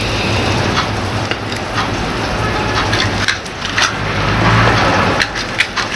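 Fresh basil leaves being torn apart by hand: a continuous crackly rustle with many small snaps.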